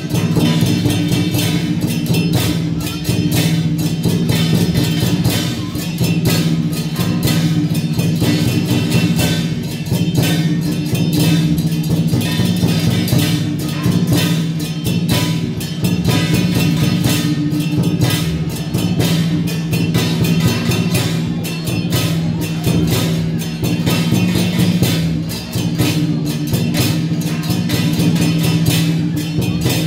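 Folk religious procession music: drums and other percussion beating fast and without pause over a steady low drone.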